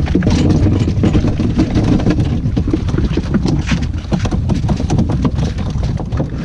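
Wind buffeting the microphone with a heavy low rumble, over a steady run of short scrapes and knocks from boots and a plastic bucket on the ice.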